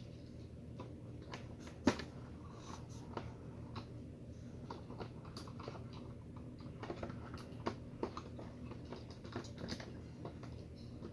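Light, irregular clicks and taps of plastic toy figures being handled and knocked together, with one sharper click about two seconds in.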